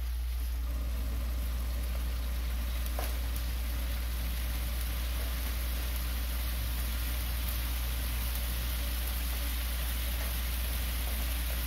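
Braising sauce simmering around filefish fillets in a nonstick frying pan over a gas burner: a steady low rumble under a fine hiss, with one faint tick about three seconds in.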